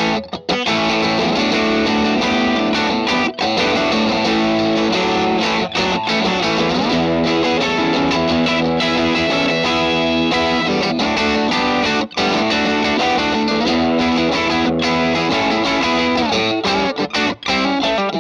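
Electric guitar played through the Boss IR-2 amp and cabinet simulator on its Vox AC30 model: held chords with a few short breaks between them, the tone control set about halfway to tame the AC30's brightness.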